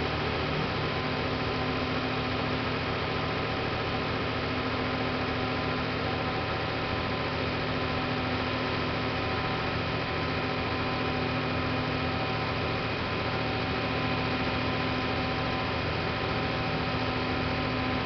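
Mercedes-Benz Actros 4144's V6 diesel engine running at a steady, raised speed, driving the Putzmeister boom's hydraulics while the boom unfolds: a constant hum with several steady whining tones.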